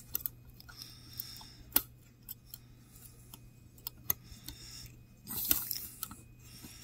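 Fine metal tweezers clicking and scraping on a tiny retaining clip and the bearing of a brushless DC laptop fan motor, in scattered sharp ticks. A louder rush of hard breathing comes a little after five seconds in.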